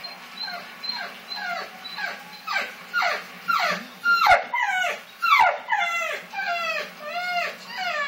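English bull terrier whining: a rapid series of high, falling whimpers, about two a second, growing louder toward the middle.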